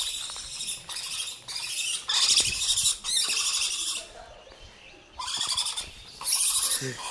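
Gray langur screeching at a dog: a series of about six high-pitched screeches, each up to a second long, with short gaps between them.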